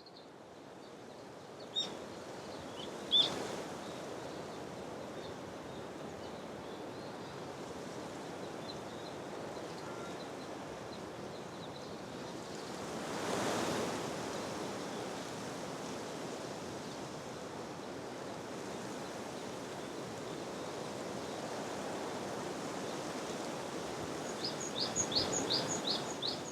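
Sea waves washing on the shore as a steady rush, swelling once about halfway through. A bird chirps sharply twice a few seconds in and gives a quick run of about five high chirps near the end.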